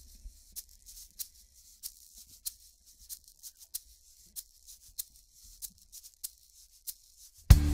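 Faint, irregular crackling clicks over a low hum. Near the end, loud music with guitar and drums starts abruptly.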